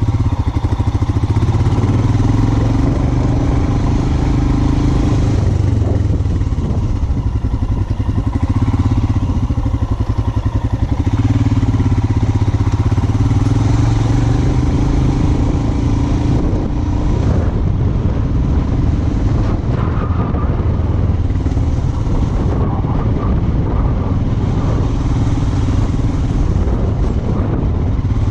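Royal Enfield Himalayan 411's single-cylinder engine running at low speed on a rough off-road trail. Its note shifts every few seconds as the throttle opens and closes.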